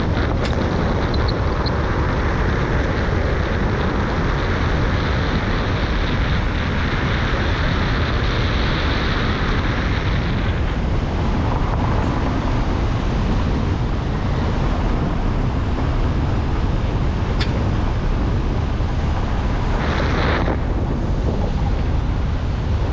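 Car driving along an unpaved road: a steady low rumble of tyre and road noise with wind buffeting the microphone. A hiss over it eases about ten seconds in, and a couple of sharp ticks sound.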